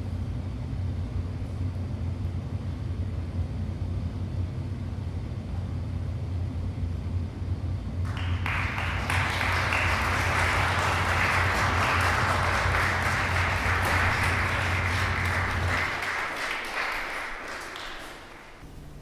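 Audience applauding. The clapping starts about eight seconds in and dies away near the end, over a steady low hum that stops shortly before the clapping fades.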